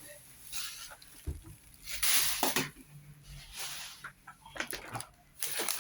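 Packaging being handled as a box is unpacked: rustling and crinkling in short bursts with a few light clicks, the loudest and longest burst about two seconds in.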